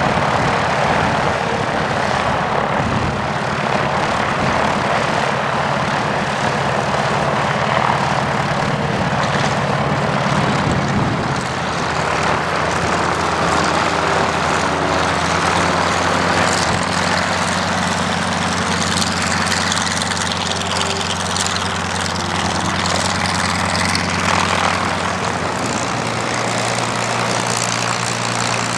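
Engines of a twin-engine Beechcraft propeller plane running with a steady drone. Their tone shifts slightly about twelve seconds in.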